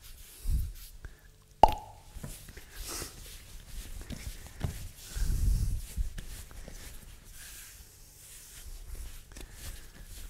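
Rye bread dough being worked by hand on a floured countertop: one sharp slap about a second and a half in as the dough is brought down onto the worktop, then softer dull thumps as it is kneaded and folded.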